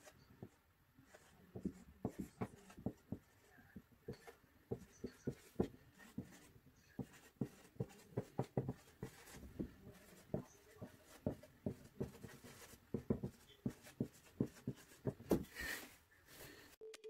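Marker pen writing on a whiteboard: a quiet, uneven run of short strokes and taps as the letters are drawn, with a louder stroke near the end.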